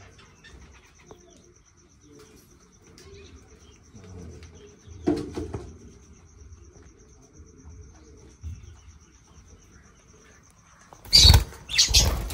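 Faint rustling and soft chirps from budgerigar chicks in a nest box, under a faint steady high tone. Near the end come a few loud knocks and rattles.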